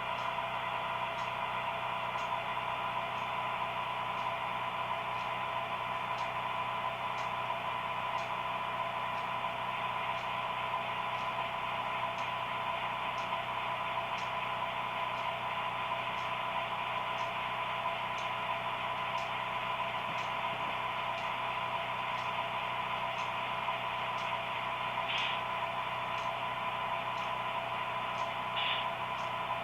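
HO-scale model train running: a steady electric hum and whine, with light ticks about once a second. Two brief higher-pitched sounds come near the end.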